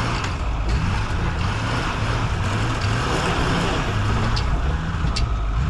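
Truck engine running, its pitch rising and falling a little, under a steady noisy rush.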